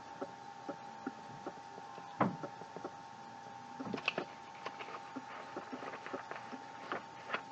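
Room tone between speech: a steady thin whine, with scattered small clicks and knocks. The loudest knock comes about two seconds in, and a short cluster of them comes around four seconds.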